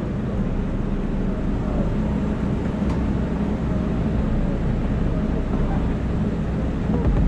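Off-road vehicle's engine running steadily as it drives along a dirt forest trail, a continuous low rumble with ride noise.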